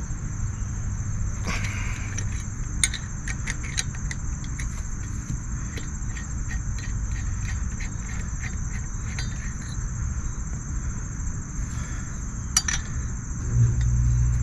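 A wrench working the 16 mm bolts out of a new brake caliper: a run of light metallic clicks and clinks, a few a second, that stop about ten seconds in, with a couple more a little later.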